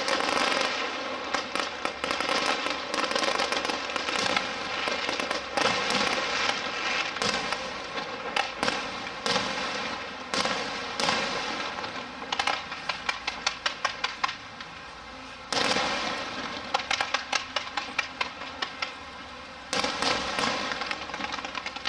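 Aerial fireworks crackling and popping in dense, rapid volleys. Fresh bursts break out about two-thirds of the way in and again near the end, each trailing off in crackles.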